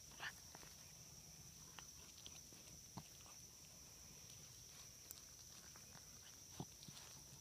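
Near silence: a faint, steady high-pitched whine, with three soft ticks, one just after the start, one about three seconds in and one near the end.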